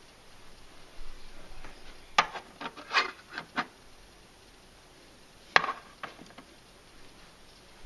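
Small taps and clicks of miniature items being handled and set down on a wooden dollhouse shelf, with light rubbing. A quick cluster of taps comes about two to three and a half seconds in, and one sharp click comes about five and a half seconds in.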